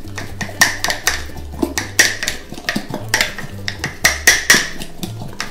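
A utensil clinking and scraping against the jar as a thick flour-and-water poolish is stirred: repeated sharp knocks, several a second and unevenly spaced.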